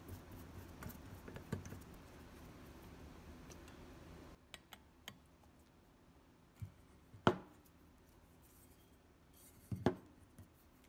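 Small screws being turned with a hand screwdriver to fix a screw terminal block and power amplifier ICs to a heatsink: faint scraping and ticking of the screwdriver at work, then a few sharp separate metallic clicks, the loudest about seven seconds in and another near the end.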